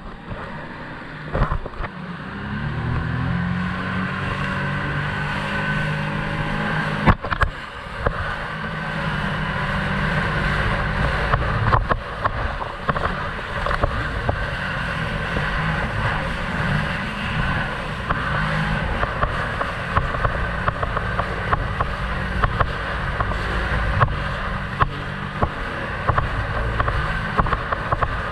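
Jet ski engine speeding up about two seconds in, then running steadily at speed, with frequent short sharp knocks over the drone.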